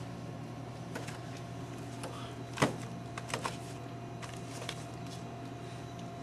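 A stack of books being gathered up off a carpeted floor: one sharp knock of book on book about two and a half seconds in, then a couple of softer knocks and a few light clicks, over a steady electrical hum.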